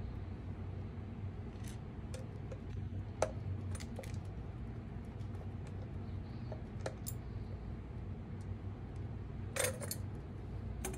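Scattered small metal clicks and clinks of a hand screwdriver backing out screws from an Aruba access point's pre-installed mounting bracket, with the loose screws and bracket handled on a tabletop; a louder clatter near the end.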